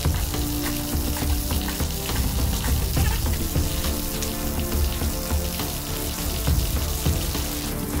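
Background music of held, slowly changing notes over a steady hiss.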